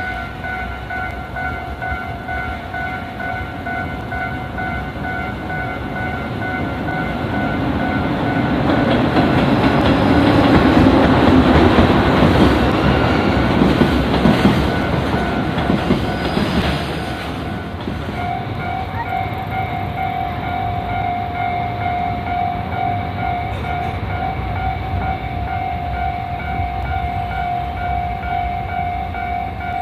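Japanese level-crossing warning bell ringing in a steady repeating pulse while a train passes over the crossing. The train grows loud from about seven seconds in, is loudest a few seconds later and dies away about seventeen seconds in. The bell keeps ringing, its tone changing and growing stronger about eighteen seconds in.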